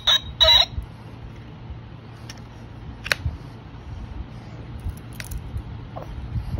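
A toddler handling a small plastic toy: light clicks and rubbing over a steady low rumble. Short, bright sounds come in the first second.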